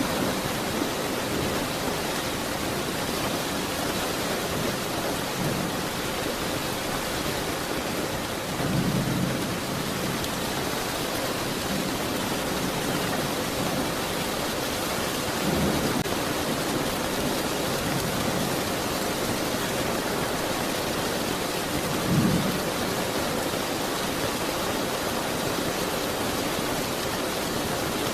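Steady rainfall with brief low rumbles of thunder three times, the last one the loudest.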